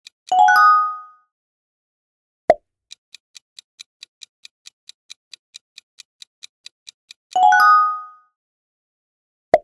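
Quiz countdown timer sound effect ticking about four times a second, broken by a bright ringing chime about a third of a second in and again about seven seconds in, when the right answer is revealed. A short sharp pop at about two and a half seconds and another just before the end mark the switch to the next question.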